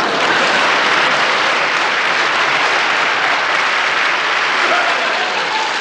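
Studio audience applauding steadily, easing off slightly near the end.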